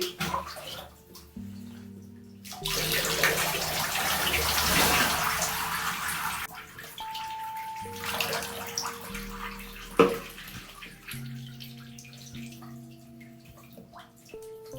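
Water running into a bathtub for about four seconds, then again more briefly, over background music with held notes. A single sharp knock comes about ten seconds in.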